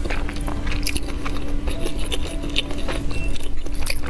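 Close-miked chewing of grilled sausage, with a quick, uneven run of wet mouth clicks and smacks.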